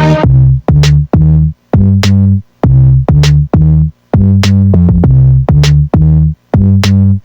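Background music: an electronic track with a drum-machine beat and heavy pitched bass notes, about two a second.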